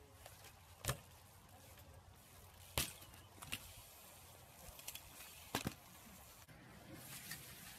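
BMX bike hitting concrete skatepark ramps: several sharp knocks of tyres and frame landing, a second or two apart, over a faint steady hiss.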